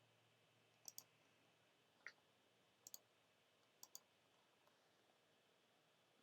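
Faint, sharp clicks, mostly in quick pairs, about once a second for the first four seconds.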